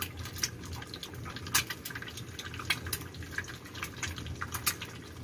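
Egg frying in hot oil in a pan on a gas stove: a steady sizzle with sharp, irregular crackles and pops, a few each second.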